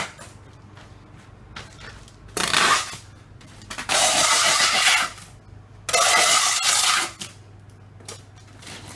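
Packing tape run off a hand tape gun three times, a short pull and then two longer ones of about a second each.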